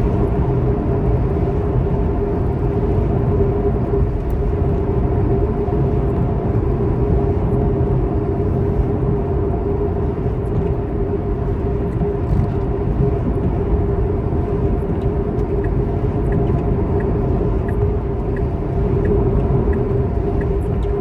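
Steady rumble of a moving road vehicle, with a hum held at a few steady pitches. A faint, regular ticking, about three ticks every two seconds, starts about three quarters of the way through.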